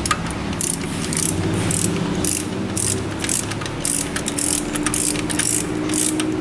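Hand ratchet wrench being worked back and forth on engine bolts, its pawl clicking in quick, even runs, about three strokes a second.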